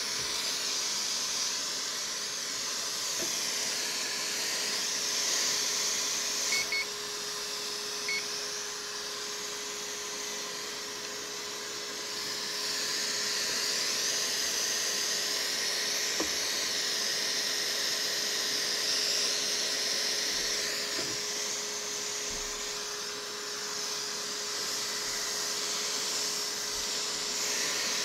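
Hakko FR-810B hot air rework station blowing hot air from its handpiece: a steady rushing hiss with a constant thin whine from the station's internal blower, while the hot air desolders a transistor from a mainboard. Short electronic beeps from the station twice about six and a half seconds in and once about eight seconds in.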